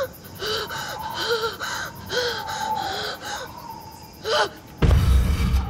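Horror sound design: a run of short cries that each rise and fall in pitch, over a steady high drone, then a sudden deep boom near the end.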